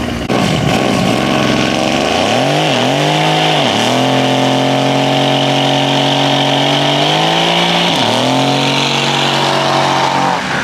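Mercedes C-Class coupe revving hard and holding high revs while its rear tyres spin in a smoky burnout, with tyre squeal over the engine. The revs climb about two seconds in and dip briefly and recover a few times.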